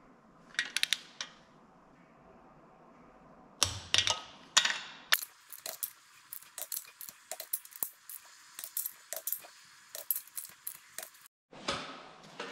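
Click-type torque wrench working on a VW 1300 air-cooled engine's cylinder-head nuts, tightening them to the 27 newton meter second stage. A few sharp metallic clicks are followed by a long run of rapid ratchet ticks.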